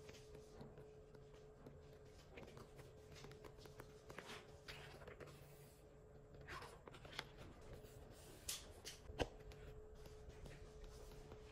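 Sheets of a paper sticker book being turned by hand: soft, faint paper rustles and light flicks, with one sharp tap about nine seconds in.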